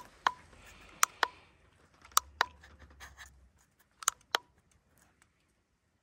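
Sharp metallic clicks and scrapes from a hand tool on battery terminals and cable ends while they are cleaned. The clicks come mostly in pairs about a quarter second apart, each with a short ring.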